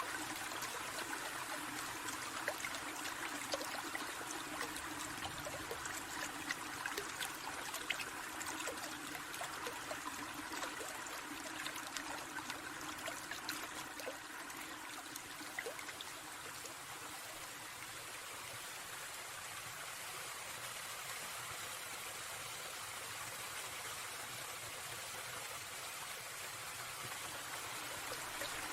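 Small stream babbling steadily, with many scattered small splashes and drips; a little quieter from about halfway.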